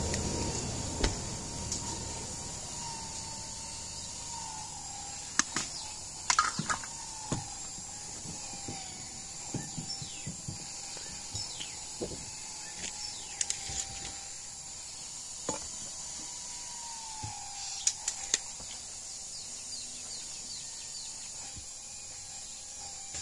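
Scattered sharp knocks and clicks from handling a rough wooden plank and a tape measure, over a steady high-pitched outdoor background hiss and a faint wavering tone.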